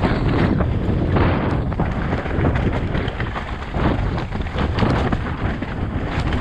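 Wind buffeting the microphone in heavy rain: a loud, steady rumbling noise broken by many irregular knocks and crackles.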